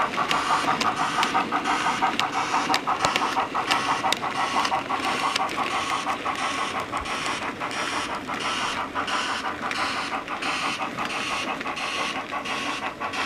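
Model railway coal wagons rolling past, their wheels clicking sharply over the rail joints several times a second, over the steady running sound of a DCC sound-fitted locomotive played through its onboard speaker. The clicks space out in the second half as the train passes.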